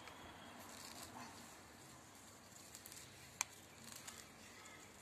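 Faint rustling and crumbling as a root-bound clump of sweet corn seedlings is pulled apart by hand, roots and soil tearing loose. One sharp click a little past halfway.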